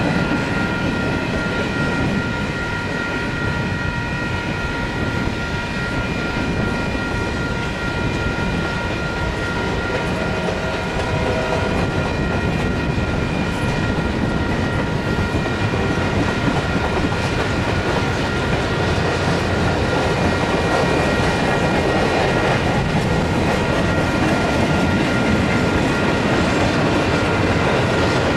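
Freight train cars rolling past, a steady dense rumble that grows louder in the second half. A steady high ringing tone runs through the first half and fades out about halfway through.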